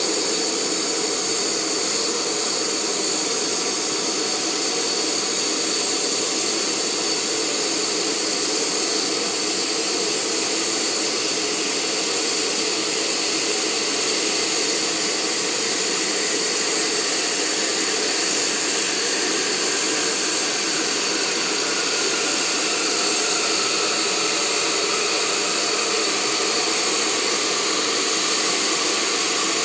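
Optimus Crux canister stove burning on an isobutane-propane mix at full flame under a pot of water heating toward a boil: a steady, even rushing hiss of the gas burner that does not change.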